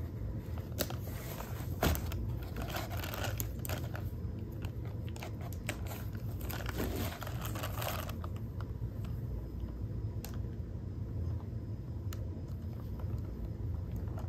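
Handling noise from a leather Hermès Evelyne shoulder bag being opened and turned in the hands: rustling and a few sharp clicks, busiest in the first eight seconds and quieter after, over a steady low hum.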